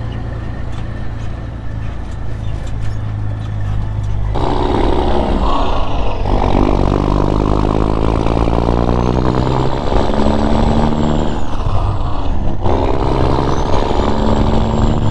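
Engine of a grain truck loaded with corn, heard from inside the cab: it runs steadily, then about four seconds in it gets louder and revs up. Its pitch climbs and drops back several times as it shifts up through the gears.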